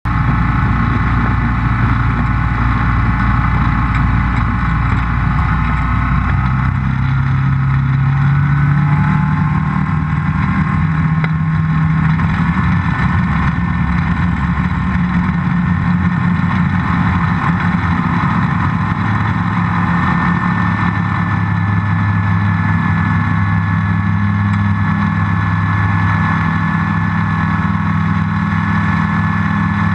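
Rans S-7S's Rotax 912 flat-four engine and propeller running at high power for the takeoff from a grass strip. The engine note climbs over several seconds, starting about six seconds in, then holds steady.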